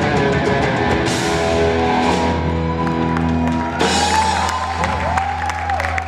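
Live rock band with distorted electric guitar, bass and drums playing. About four seconds in, a cymbal crash marks the end of the song, and the last chord rings out under a held bass note and bending guitar notes.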